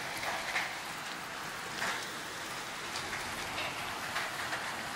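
Heavy rain pouring down with small hailstones mixed in: a steady hiss of rain on the ground and roofs, broken by a few sharper hits.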